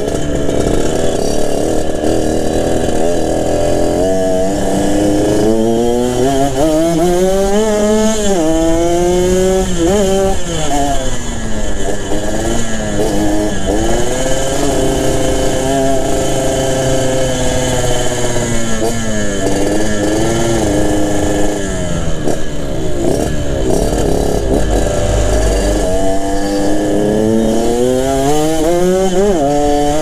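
Yamaha RX-King's single-cylinder two-stroke engine breathing through a B2M racing exhaust while being ridden. It pulls up through the gears: the pitch climbs and drops back at each shift, several times over.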